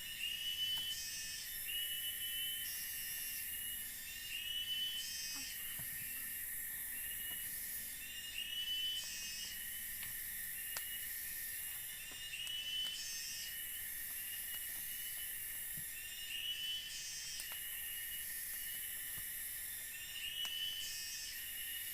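Forest insects calling: a constant high buzz that pulses on and off, with a short chirping call repeated about every two seconds.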